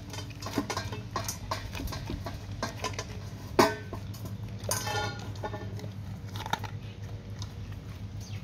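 Dog eating dry kibble from a stainless steel bowl: irregular crunches and clicks of kibble and muzzle against the metal, with one sharper knock about three and a half seconds in, tapering off as the bowl empties near the end.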